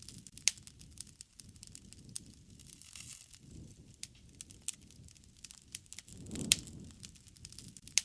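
Wood fire crackling, with sharp pops at irregular intervals over a low, soft rush of burning. The rush swells and a loud pop comes about six and a half seconds in.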